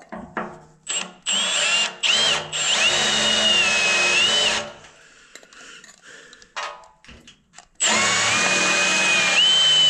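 Power drill boring holes in a welded steel bumper with cutting oil. A few short bursts come first, then two longer runs of about two seconds each, split by a quieter pause. During the runs the bit squeals with a high whine that wavers in pitch.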